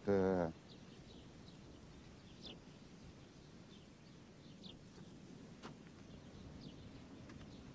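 Quiet outdoor ambience: a low, steady background noise with a few short, high bird chirps scattered through it.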